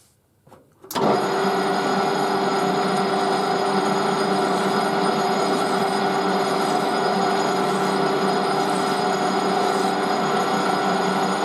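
Metal lathe switched on about a second in, then running steadily with a constant gear whine over its motor noise.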